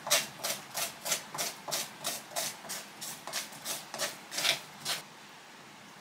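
A quick, even run of short scratchy rubbing or scraping strokes, about three a second, that stops about five seconds in.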